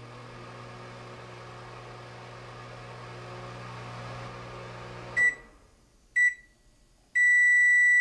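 Microwave oven running with a steady low hum that stops about five seconds in. The end-of-cycle alert then sounds: two short high beeps a second apart and a longer, louder beep of about a second near the end, signalling the cooking is done.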